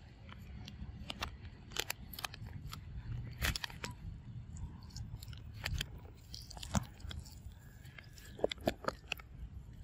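A macaque chewing food close to the microphone: irregular crunching and clicking bites, over a low rumble.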